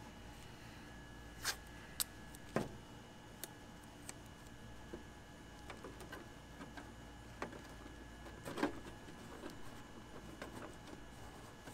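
Scattered clicks and crinkles of blue painter's tape, a paper template and a clear plastic RC drag wing being handled and taped together. A few sharp snaps come between about one and a half and two and a half seconds in, and another small cluster near nine seconds.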